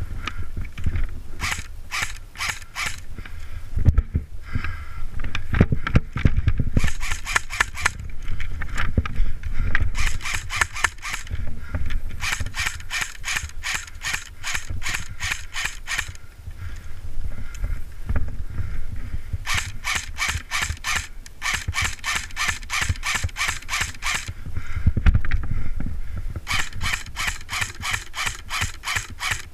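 Electric airsoft rifles firing in strings of rapid, evenly spaced shots, each a sharp mechanical click, with pauses between the strings. A low rumble of movement or handling runs underneath.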